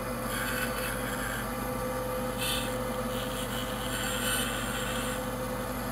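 Bandsaw running with a steady hum, its blade nibbling small cuts into a wooden board; short hissing bursts of cutting come through, the clearest about two and a half seconds in.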